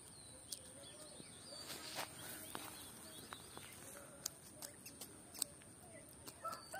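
Faint scattered clicks and rustles of hands working through a cast net's mesh, over faint bird chirps and a steady high hiss.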